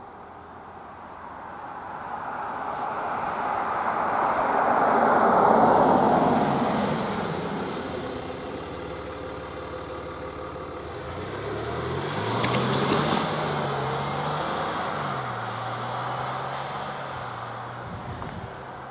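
A Range Rover SUV drives past and over the railway crossing. Its tyre and road noise swells to a peak and fades, and there is a sharp knock as it crosses the rails. The engine note then pulls away, stepping up and down in pitch as it accelerates.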